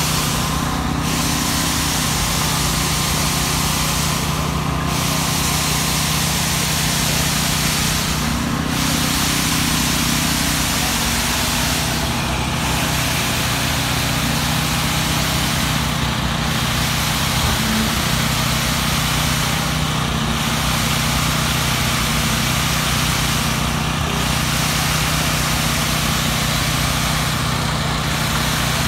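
Small petrol engines of concrete poker vibrators running steadily at working speed, with a constant hum and a hiss that dips briefly about every four seconds.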